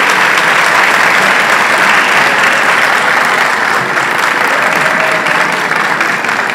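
Audience applauding, a dense, loud clapping that slowly dies down a little toward the end.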